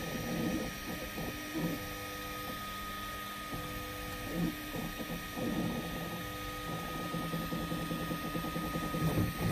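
Ultimaker 3 Extended 3D printer printing: its stepper motors whine in short steady tones that jump in pitch every second or so as the print head moves, over a constant high whine.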